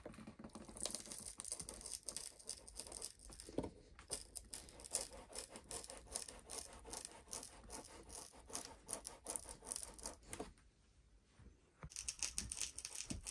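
Metal scraper blade scraping and prying along the glued seam of a plastic battery case lid: a rapid run of short scratching strokes, with a brief pause about ten and a half seconds in.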